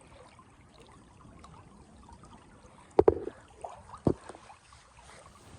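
Faint running river water, broken by two sharp knocks: a quick double knock about three seconds in and a single one about a second later.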